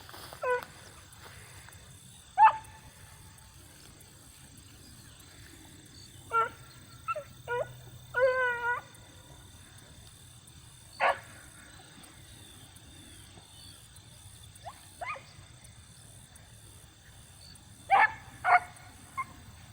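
Pack of beagles baying and yelping in scattered short calls, the hounds giving voice as they work the brush for a rabbit; one longer wavering bay comes about eight seconds in, and two close calls come near the end.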